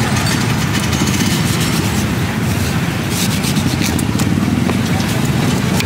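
Steady low rumble of street traffic, with a few light knife scrapes on a peeled green mango a little past the middle.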